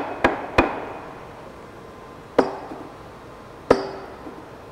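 A steel shotgun barrel tube struck against a stack of steel bars, to show that the hardened barrel steel doesn't dent. Three quick metallic knocks in the first half-second, then two single strikes later, each leaving a brief metallic ring.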